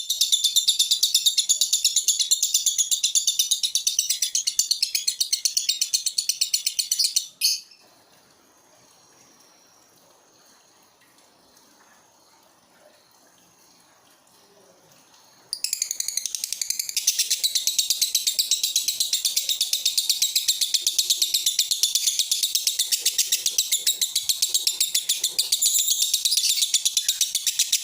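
Male lovebird singing in a rapid, unbroken high-pitched chatter of chirps, the 'konslet' song style. The song breaks off about seven seconds in, pauses for about eight seconds, then starts again just as fast.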